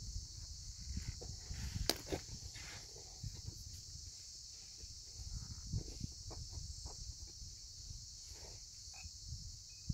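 Steady high-pitched insect chorus over a low rumble, with scattered clicks and knocks, the sharpest about two seconds in.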